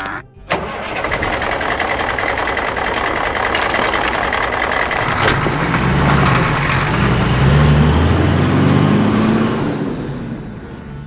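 Heavy dump truck engine starting and running, its pitch wavering and growing louder as the loaded truck pulls away, then fading out near the end.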